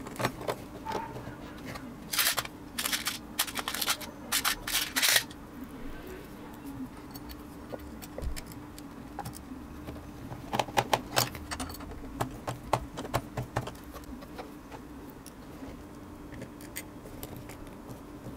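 Clusters of sharp clicks and small metallic taps from hand tools and small parts being handled at a workbench, one run near the start and another around the middle, over a faint steady hum.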